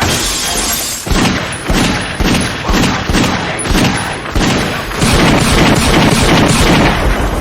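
Film shootout gunfire: a rapid run of loud gunshots, about two a second, coming thicker near the end.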